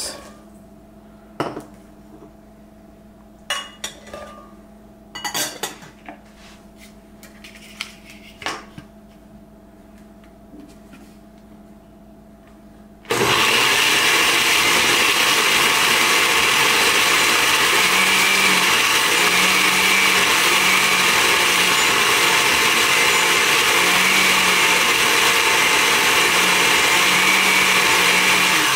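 A few knocks and clinks of ingredients going into the jar, then about 13 s in an electric blender switches on and runs steadily for about 15 s, blending red chilies and vinegar for peri peri sauce. It cuts off near the end.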